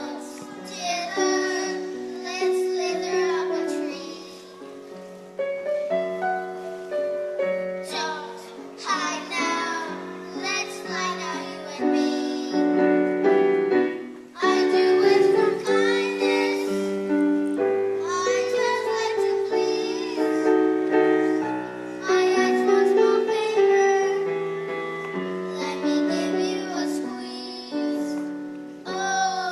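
Music: a song sung over an instrumental accompaniment of held, stepping notes.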